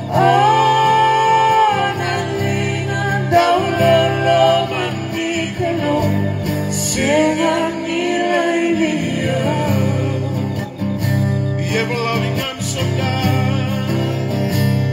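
A gospel song sung by a man and two women into microphones, with an acoustic guitar strummed along, the voices holding long notes.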